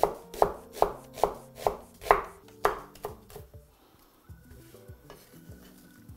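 Chef's knife chopping onion on a wooden cutting board, a steady run of knocks about two or three a second that stops about three and a half seconds in.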